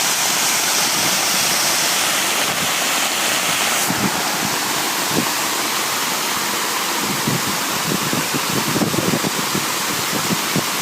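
Fast floodwater rushing in a steady, loud wash of noise. The sound changes abruptly about four seconds in, and irregular low knocks and crackles come through in the second half.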